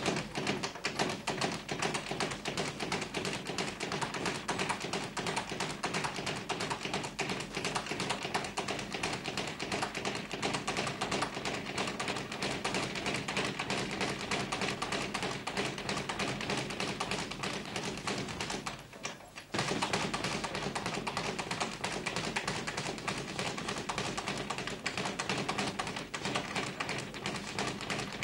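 Boxing training noise: continuous rapid tapping and thuds of gloves striking and feet shuffling on the ring canvas, dropping out briefly about two-thirds of the way through.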